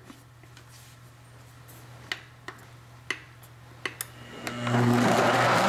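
A few light clicks, then a countertop blender motor starts about four and a half seconds in and runs steadily, blending a creamy sauce of cheese, cream, red pepper and milk.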